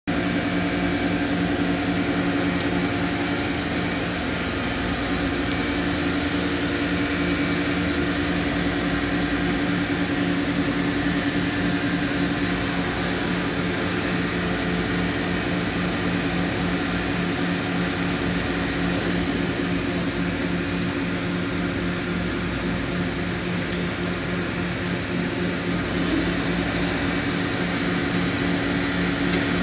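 Sodick die-sinking electrical discharge machine (EDM) running with a steady electrical hum and buzz. A high whine over it stops about two-thirds of the way through and comes back near the end.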